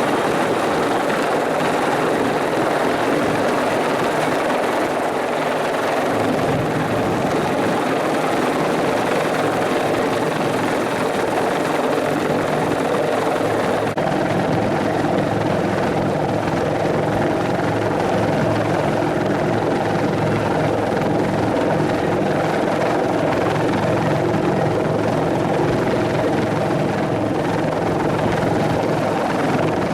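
Bell 412 twin-turbine helicopter with a four-blade main rotor, running steadily with continuous rotor and turbine noise. The high hiss eases a little about fourteen seconds in.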